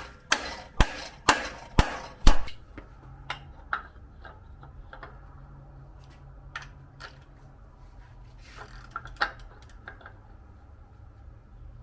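A hammer striking a bolt extractor to seat it in a stripped cam bolt: about six sharp blows roughly half a second apart, the last the loudest. After that come scattered lighter clicks and taps of tool work over a faint low hum.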